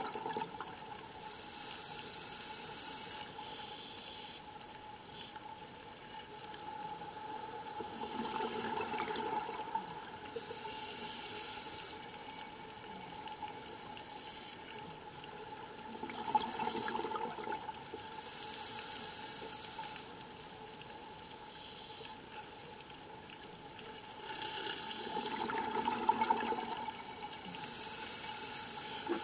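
Scuba diver breathing through a regulator, heard underwater: a hissing inhale alternates with a rushing, bubbling exhale, about one breath every eight seconds, four breaths in all.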